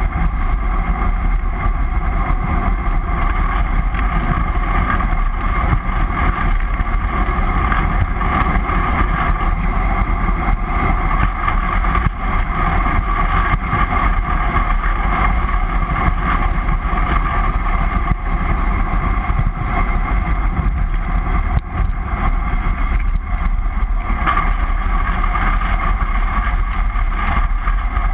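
Steady wind rush over a GoPro in its housing on a bicycle coasting fast downhill, with tyre and road noise under it.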